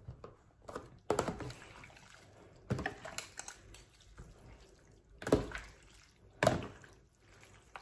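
Metal serving spoon and fork stirring and lifting noodles in broth in a plastic tub: liquid sloshing and splashing, with a few sharp clinks and knocks of the utensils against the tub.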